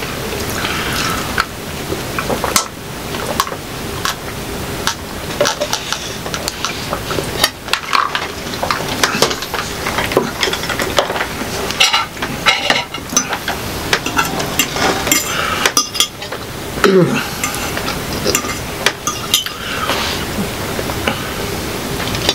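Close-miked eating sounds of two people eating spaghetti: wet, crackly mouth sounds with many quick clicks of forks against plates.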